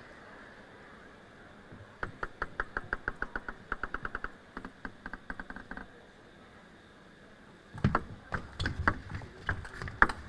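A celluloid-type table tennis ball ticking in quick, even bounces for about four seconds, fading as it goes. Near the end a rally starts: sharper clicks of the ball on bats and table, mixed with heavier low thumps.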